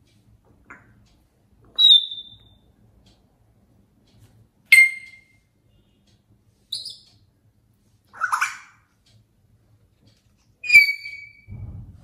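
African grey parrot giving about six short whistles and calls, a second or two apart, some clear and whistle-like, one rougher. They are the parrot calling out for its owner, who is out of the room.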